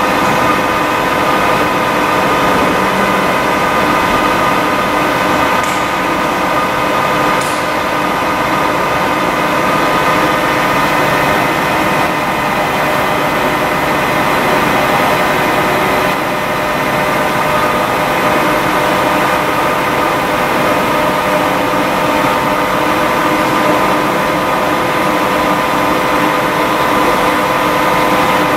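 XYZ ProTurn 1745P CNC centre lathe running steadily, a constant hum and whine of several steady tones over a hiss.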